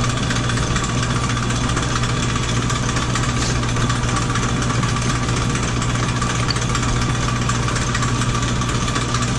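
Century-old Sidney lathe running under power with a steady, unchanging hum.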